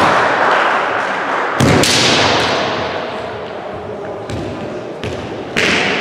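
Kendo fighting in a large echoing sports hall: four sharp thuds of stamping feet and bamboo shinai strikes on the wooden floor and armour. Loud kiai shouts follow the first and last of them.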